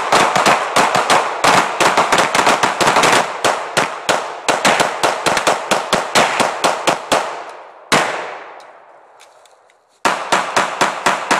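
Several guns, a .357 revolver among them, fired together in a rapid, overlapping string of shots that thins out over about seven seconds. A single shot comes about eight seconds in, then a short pause, then another rapid string of shots begins around ten seconds.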